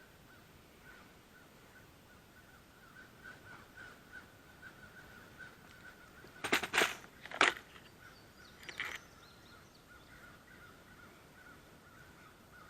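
Crows cawing: three quick caws about halfway through, then a fainter one about two seconds later.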